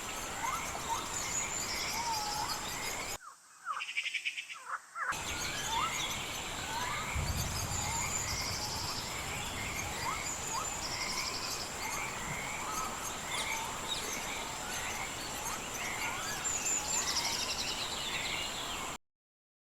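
Nature ambience sound effect: many birds chirping and trilling over and over above a steady high hum, with a short differently recorded stretch of bird whistles spliced in about three seconds in. It cuts off abruptly near the end.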